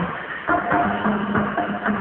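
Instrumental background music with a steady beat, about two beats a second.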